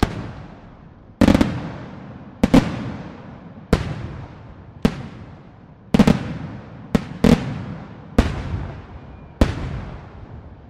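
Aerial firework shells bursting in quick succession, about one sharp bang a second, each bang echoing and dying away before the next.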